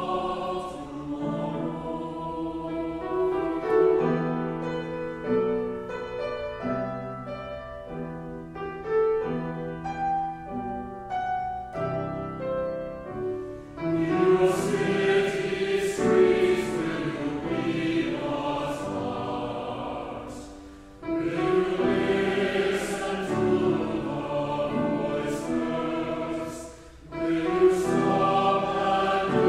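Choir singing a hymn with accompaniment. A quieter instrumental passage runs from about two to fourteen seconds in, then the choir comes back in with full voices, pausing briefly twice near the end.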